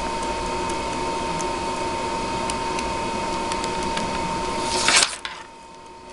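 Steady mechanical hum with a thin whine, broken about five seconds in by a brief rustling clatter, after which the hum stops.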